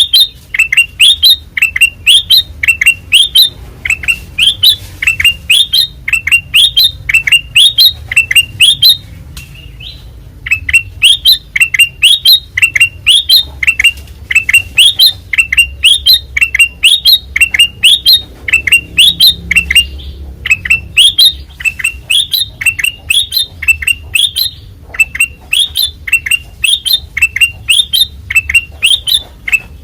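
Kutilang emas bulbul singing loudly in a rapid, even series of short sharp notes, pausing briefly about nine seconds in and again near twenty-four seconds.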